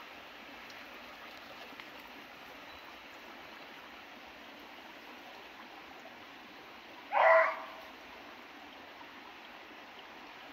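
Steady rush of running stream water, broken once about seven seconds in by a single short, loud bark from a hunting dog.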